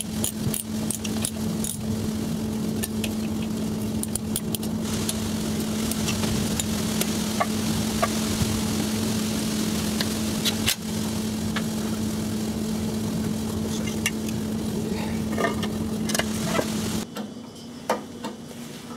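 Small engine of a Kalmo GC-K300 slope mower running steadily, with scattered light metallic clicks over it. The engine sound breaks off about seventeen seconds in.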